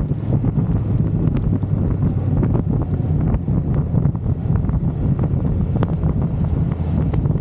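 Motorcycle engine running steadily at road speed, with heavy wind noise buffeting the camera microphone.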